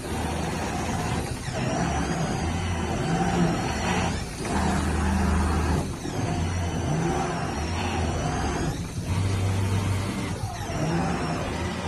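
CNC digital cutting table running as it cuts carpet: a steady machine noise with a low motor hum that shifts pitch as the cutting head moves, and brief dips in level every few seconds.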